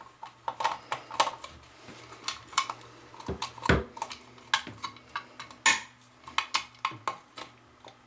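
Irregular light clicks and rattles of a plastic GFCI outlet and its metal mounting screws being handled, with a louder knock a little under four seconds in.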